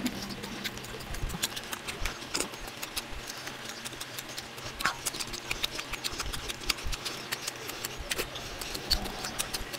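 Close-miked eating sounds, sped up: a quick, irregular run of wet clicks and smacks from chewing and from fingers picking at a whole fried fish.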